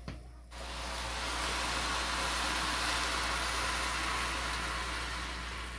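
Water poured from a jug into a pot of sautéed rice and vegetables, a steady pour starting about half a second in and tailing off near the end.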